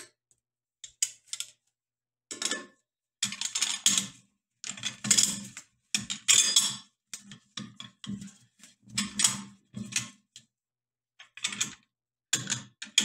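Springfield 1903 rifle receiver being screwed by hand onto the threaded breech of a new barrel, with irregular metal clicking and clattering as the threads turn and the parts are handled. This is a trial fit of the receiver against the barrel shoulder during barrel fitting.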